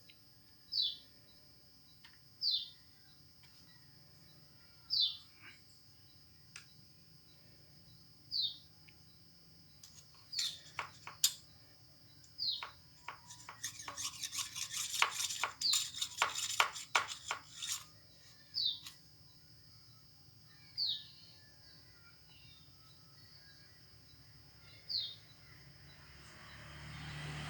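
A bird's short, downward-sliding chirps, repeated every two to four seconds over a steady high insect drone. A run of rapid clicks and knocks starts about ten seconds in and lasts some eight seconds.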